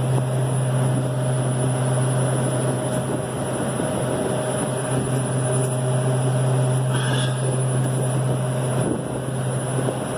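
Walk-in freezer evaporator fans running with the refrigeration unit on, a steady low hum and whir of air with no change.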